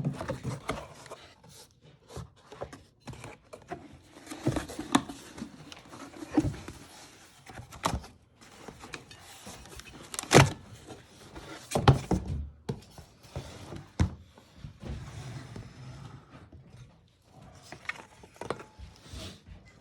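Packaging being handled during the unboxing of an enameled cast-iron Dutch oven: irregular thunks and knocks with rustling and scraping between them. The sharpest knocks fall near the middle.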